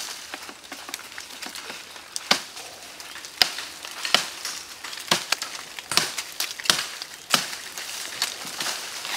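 A knife cutting thin woody stems and branches: a string of sharp snaps and cracks about once a second, with foliage rustling between them.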